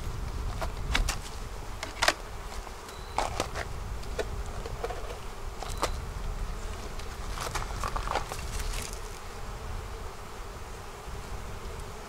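Honeybees buzzing around an opened hive, with scattered sharp knocks and clicks as wooden hive boxes and parts are handled, the loudest about two seconds in.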